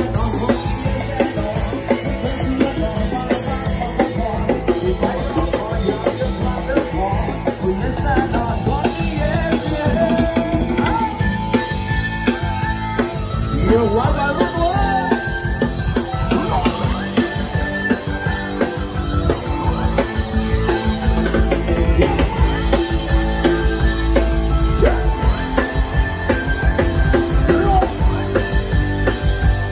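Live band playing loud, upbeat rock-style dance music through a PA, with a drum kit and singing.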